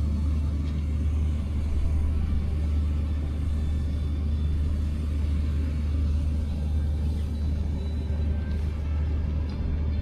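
A motor running steadily, a low, even rumble.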